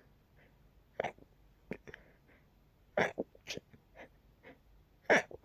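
Stifled, pinched-nose sneezes: three short muffled bursts about two seconds apart, the loudest near the end, with small breathy catches between them.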